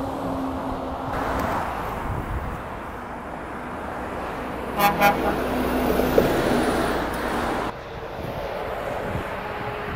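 Lorry traffic running past with engine and tyre noise, and a truck horn giving two short toots about five seconds in. The traffic noise grows louder after the horn, then drops off abruptly near the end.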